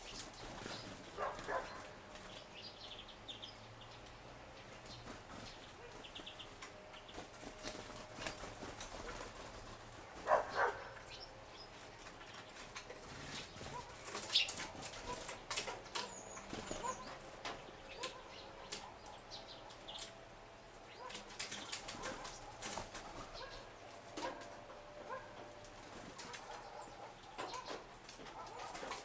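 Small birds, great tits among them, flying in and out of a wooden feeder: repeated brief wing flutters, the loudest about ten and fourteen seconds in, with frequent light taps as they land and peck on the wood.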